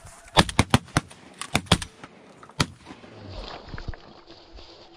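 A rapid volley of shotgun shots from several guns: about eight sharp cracks within the first two seconds, some overlapping, then a single shot about halfway through.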